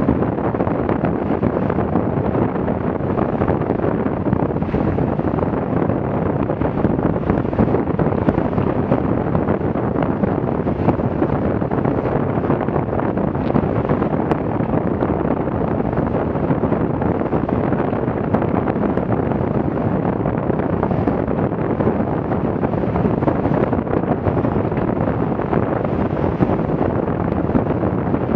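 Steady wind buffeting the microphone over rushing water as a Farrier F-82R trimaran sails at about ten knots through waves.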